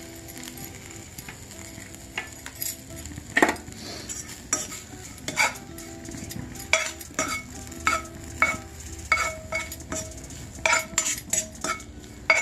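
Slotted metal spatula scraping and clinking against a kadai while stirring grated fresh coconut frying in ghee, over a soft steady sizzle. The spatula strikes start about two seconds in and come in irregular clusters, often a couple a second.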